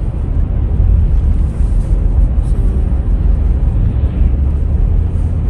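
Steady road noise inside a moving car's cabin: tyres hissing on wet pavement over a deep, constant rumble.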